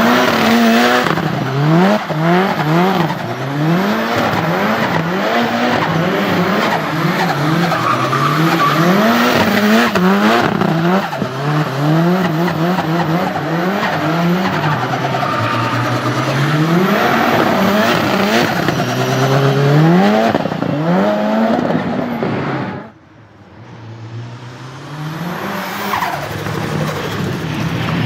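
Tuned turbocharged Nissan 200SX engine revving hard in quick rising and falling sweeps as the car drifts, with tyres squealing and skidding throughout. About 23 seconds in the sound drops off suddenly, then the engine picks up and revs again near the end.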